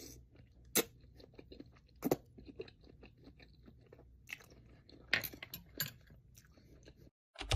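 Close-miked chewing of sushi: scattered wet mouth smacks and a few crisper crunches. Near the end the chewing cuts off and a loud run of rapid typing-like clicks begins.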